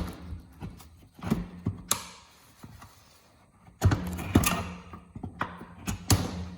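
Tire spoons levering a tire off the wheel of a 1973 Honda XL175: a string of irregular knocks and clunks as the metal levers work against the rim and tire.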